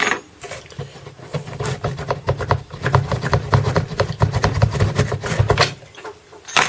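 Two clamps being loosened to free a belt sander from its bench mount: a knock, then about five seconds of quick, irregular clicking and scraping, and another knock at the end.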